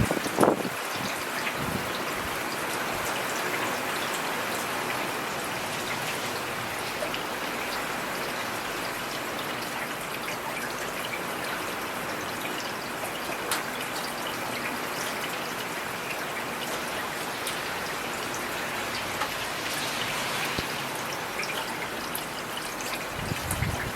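Steady rainfall with scattered louder drops, and a single sharp knock about half a second in.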